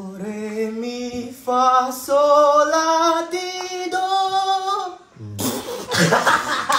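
A young man singing one held vowel unaccompanied, stepping his pitch higher and higher as in a vocal scale exercise. About five seconds in, the note gives way to a loud, rough outburst.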